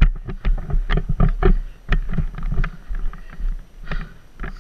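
Footfalls on artificial turf and the rattle of lacrosse gear, heard through a helmet-mounted camera, as a series of irregular knocks and clicks over a low wind rumble on the microphone.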